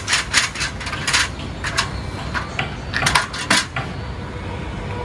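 Scattered light metallic clinks and knocks in a few short clusters with pauses between, metal fittings rattling as a person steps down and moves about on a balcony beside a steel-cable safety grill.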